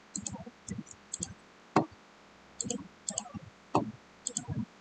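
Computer mouse and keyboard clicking: a dozen or so short, irregular clicks, several in quick pairs.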